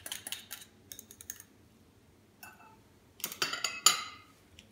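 Light clicks of glassware and a wire whisk as melted butter is poured into a glass mixing bowl, then a short burst of a wire whisk clicking and scraping against the glass bowl about three seconds in, the loudest part.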